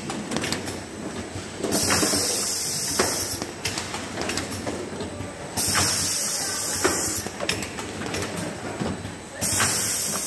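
Automatic carton packaging machinery running with steady mechanical clatter and clicking. A long hiss, lasting one to two seconds, starts and stops sharply three times, about every four seconds, in step with the machine's cycle.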